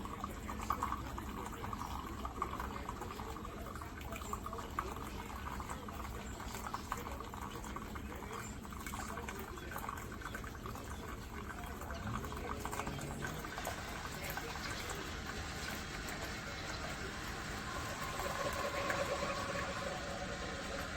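Keurig K-Brew+Chill single-serve coffee maker brewing: a steady stream of liquid running into the cup, with many small crackles through it.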